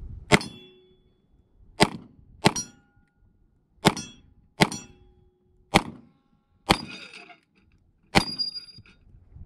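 Eight pistol shots from a .40 caliber handgun, fired at a steady pace about a second apart, most of them followed by a short metallic ring of struck steel targets.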